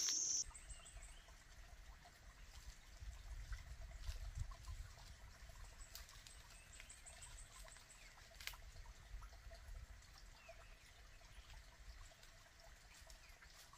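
Faint outdoor forest ambience: a low, uneven rumble with scattered small clicks and a brief run of faint high ticks about halfway through. A loud, steady high hiss cuts off about half a second in.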